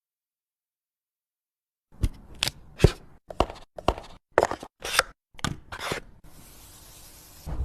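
Packaging and phone being handled: a quick run of sharp clicks, taps and knocks starting about two seconds in, followed by a steady faint hiss near the end.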